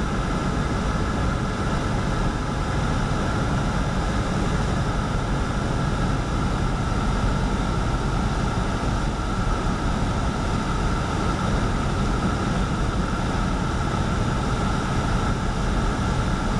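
Single-engine piston airplane's engine and propeller droning steadily, heard inside the cockpit, throttled back on final approach.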